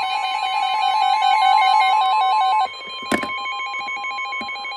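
NOAA Weather Radio alert tones: a steady 1050 Hz warning alarm tone together with a rapid warble stepping between two pitches. About 2.7 s in the tones drop sharply in level, and a sharp click follows; the tones carry on more quietly.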